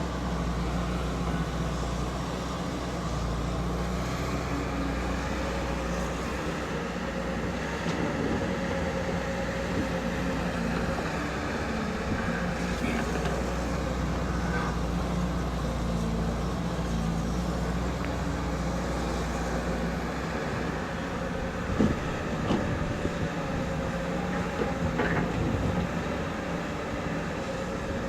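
Excavator engine running steadily under work, with a few sharp knocks about three-quarters of the way through.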